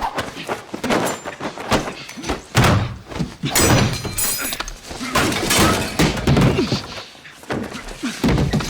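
Hand-to-hand fight sound effects: a rapid run of heavy blows and thuds, bodies slamming into walls and furniture, with a louder crash about three and a half seconds in.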